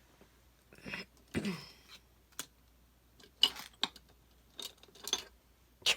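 Paper and craft supplies being handled on a tabletop: a string of short rustles and light clicks, the longest about a second and a half in.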